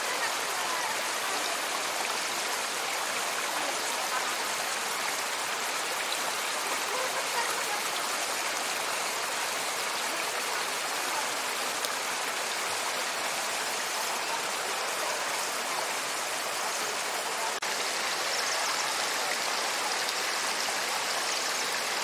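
Shallow river water flowing fast over a flat rock shelf: a steady rush of running water, a little brighter near the end.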